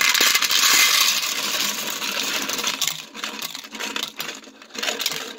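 Moly-coated Sierra copper-jacketed bullets, wet from the moly slurry, poured out of their container into a plastic colander. A dense clattering rush lasts about three seconds, then thins to scattered clinks as the last bullets drop.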